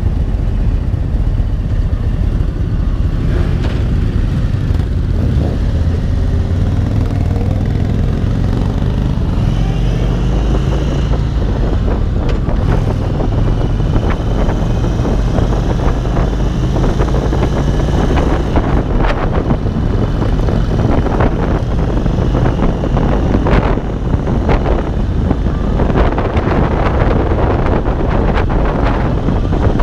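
Indian Springfield Dark Horse's Thunderstroke 116 V-twin engine pulling away, its pitch rising as the bike gathers speed, then running steadily at road speed. In the second half, wind gusts on the microphone.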